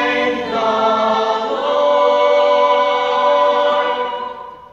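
A mixed chorus of young voices singing a sustained chord in harmony, shifting notes twice in the first second and a half, then holding one long chord that cuts off near the end.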